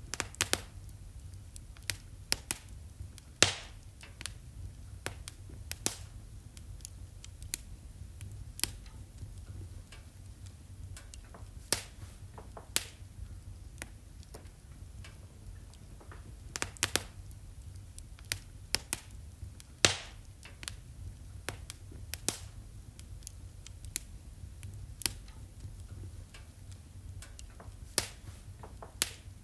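Wood fire crackling in a fireplace: irregular sharp pops and snaps over a low steady rumble, with a few louder pops, the strongest about three and a half seconds in and again around twenty seconds in.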